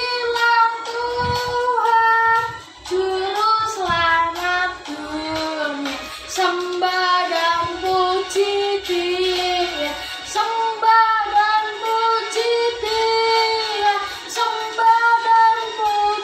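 Children singing a Christian Christmas song, a single melody line in long held notes.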